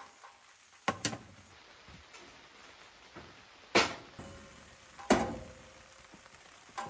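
Metal knocks and clanks of an aluminium pot against the steel grate of a Coleman camp stove: two light taps about a second in, then two loud clanks that ring briefly, over a faint steady hiss.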